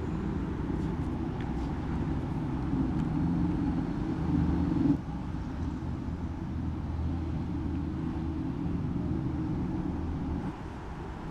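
A motor vehicle engine running steadily at idle. It swells a little and then drops back suddenly about five seconds in, and the engine sound falls away near the end.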